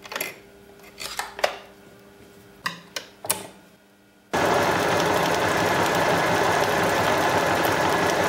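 Several sharp clicks as the sewing machine's snap-on presser foot is released and a clear plastic foot is snapped onto the shank. Then, about four seconds in, the Janome DC 4030PR electronic sewing machine starts stitching and runs steadily.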